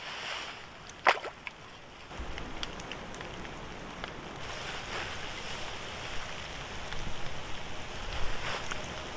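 Water sloshing and splashing in shallow standing floodwater over a steady wash of noise, with one sharp knock about a second in.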